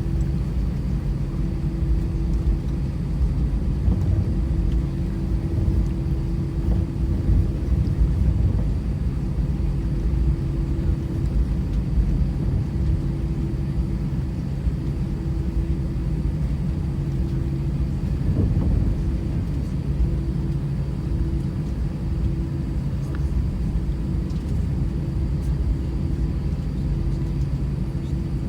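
Inside an Airbus A319 cabin, a steady low rumble with a steady engine drone and a few faint knocks as the jet rolls toward or along the runway for takeoff.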